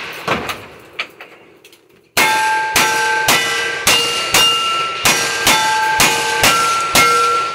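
Rapid gunfire in a cowboy action shooting stage: about ten shots roughly half a second apart starting about two seconds in, each followed by the ringing clang of a hit steel target. Before the string, a few small clicks during a pause.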